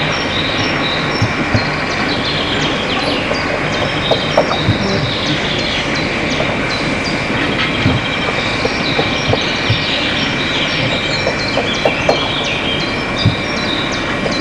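Small steam locomotive moving slowly over points, hissing steam with scattered clanks and knocks. Birds chirp repeatedly alongside.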